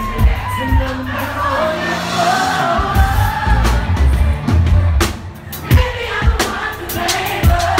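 Live pop song: a woman singing lead into a microphone over a band, with a steady drum beat and heavy bass, a short drop in the backing about five seconds in.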